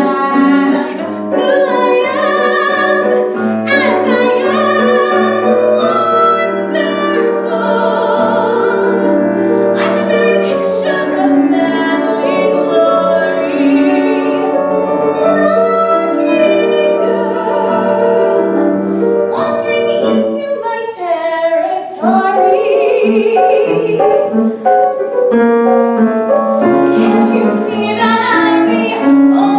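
A woman singing in an operatic, classical style over piano accompaniment, holding long wavering notes, with a brief break in the music about two-thirds of the way through.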